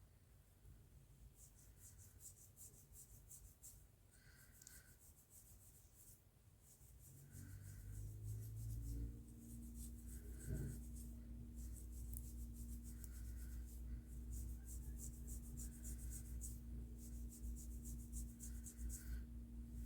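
Fingers rubbing and scrunching hair close to the microphone, making crisp crackling in repeated strokes. A low steady hum joins partway through.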